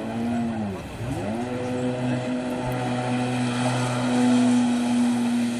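Yamaha 800 jet ski's two-stroke engine running out on the water: its note rises and dips within the first second, then climbs back and holds steady at speed.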